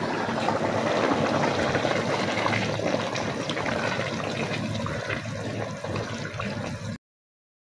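Pot of chickpea curry boiling and being stirred with a wooden spoon: steady bubbling and sloshing of the liquid. It cuts off suddenly about seven seconds in.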